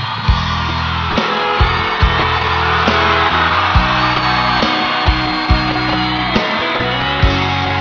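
Background music: an instrumental passage led by guitar, with a steady beat.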